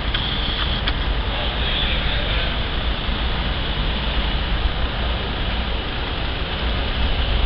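Steady low vehicle rumble with a hiss above it, holding level with no revving or change in pitch.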